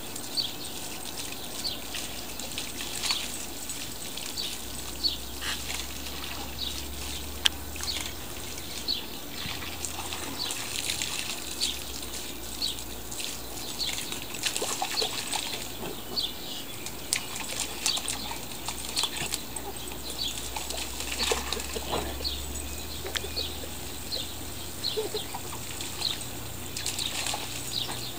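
Water from a garden hose spraying and splashing into a shallow mud puddle. A bird chirps over and over above it.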